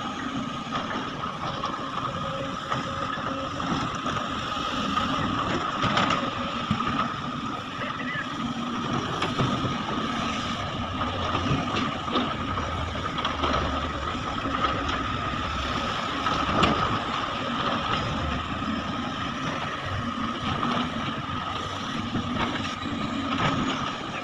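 Sunward excavator's diesel engine and hydraulics running steadily, with a constant high whine and scattered short knocks.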